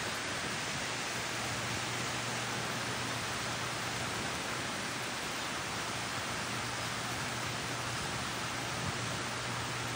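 Heavy rain falling in a steady, even hiss, mixed with storm runoff water rushing down a grassy hillside.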